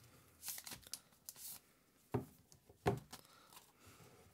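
Clear plastic protective film being peeled off a smartphone, with short crinkly rustles, then two sharp taps about two and three seconds in as the phone is handled on the table.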